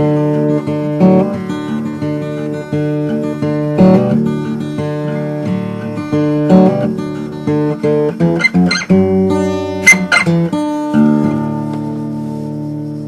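Acoustic guitar fingerpicked in a blues style with no singing. Plucked notes and bass lines run along, a quick run of picked notes comes about two-thirds of the way through, and then a chord is left ringing near the end.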